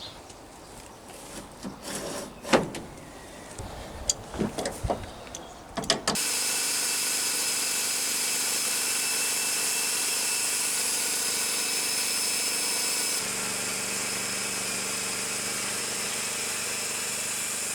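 Several seconds of scattered knocks and clatter, then a homemade bandsaw mill starts running about six seconds in with a steady machine drone and a high whine that continues, changing slightly in tone partway through.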